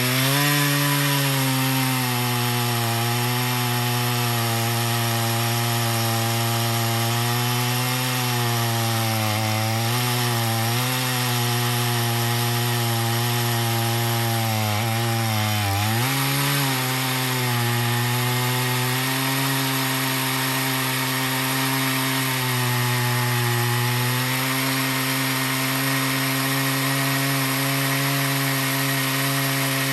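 Chainsaw running at full throttle as it rips lengthwise through a cedar log to cut a slab, its engine note steady and dipping briefly under load about a third of the way in and again about halfway through.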